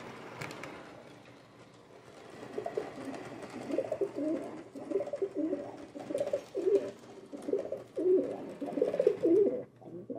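Domestic pigeon cooing, a run of repeated low coos starting about two and a half seconds in.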